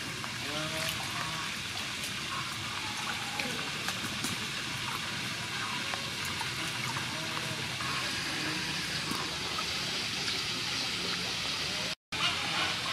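Water sloshing and splashing in a steel bowl as vegetables and herbs are rubbed clean by hand, with small splash clicks throughout. The sound cuts out for a moment near the end.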